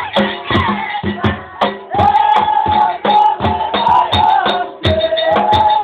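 Ahwach performance: men's voices singing together in long held notes over sharp, steady percussion beats, about three a second.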